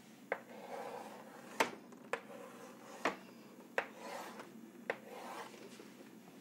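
White chalk drawing on a chalkboard: strokes scraping along the board, broken by six sharp taps as the chalk strikes it.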